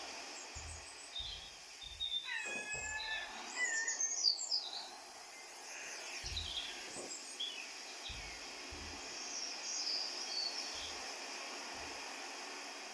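Birds chirping and trilling in short bursts over a steady background hiss, busiest from about two to five seconds in and again near ten seconds. A few soft low thumps come through now and then.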